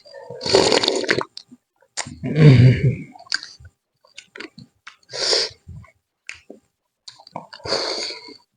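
Close-miked eating: a person chewing and smacking on chicken, in four louder wet bursts with small clicks between.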